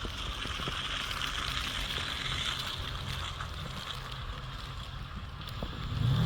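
A steady hiss with a low hum underneath.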